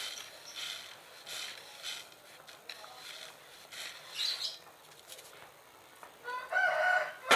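A metal spoon scooping granulated sugar out of a plastic jar, a series of short scrapes. About six seconds in, a chicken calls, louder than the scraping, for about a second.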